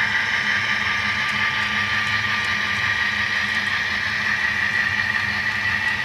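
HO-scale model coal train running steadily: the hopper wheels rolling on the track, with the lead Kato AC4400CW's sound decoder playing its diesel locomotive engine sound.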